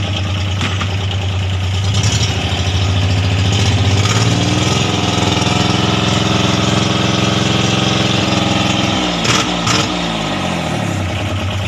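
Yanmar three-cylinder 13 hp marine diesel engine running, revved up from idle about two seconds in and held at higher speed, then dropping back to idle near the end. Two sharp knocks come as it slows. It is being test-run to judge its condition before purchase.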